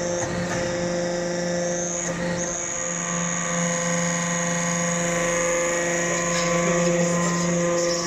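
Hydraulic metal-chip briquetting press running, its motor and hydraulic pump giving a steady hum with a high whine above it.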